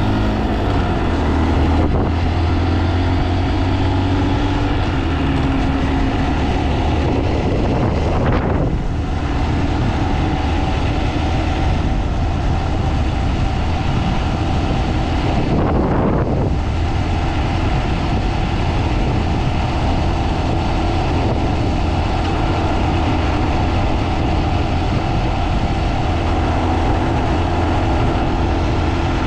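Honda Monkey 125's single-cylinder four-stroke engine running under way, its note rising and falling with the throttle and changing briefly twice, with wind buffeting the action camera's microphone.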